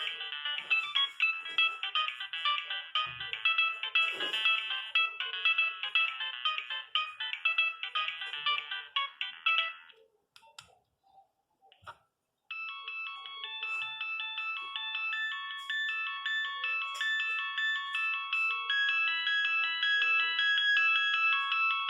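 Nokia 3510 mobile phone ringtones played one after another. A fast, busy melody cuts off about ten seconds in. After two seconds of near silence with a few faint clicks, the next ringtone starts and grows louder toward the end.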